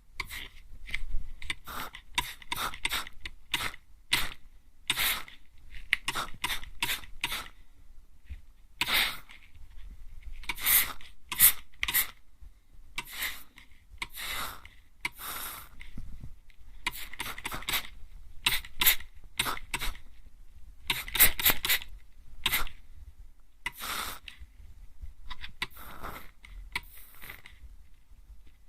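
Hand mist sprayer (atomizer) spritzed right at the ear, many short hissing puffs at an uneven pace, some coming in quick runs of two or three.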